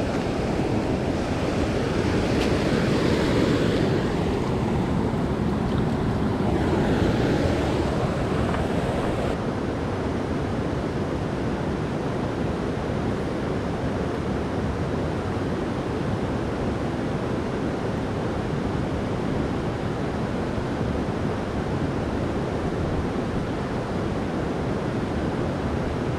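Creek water rushing in a steady noise, with some wind on the microphone. It is a little louder in the first several seconds.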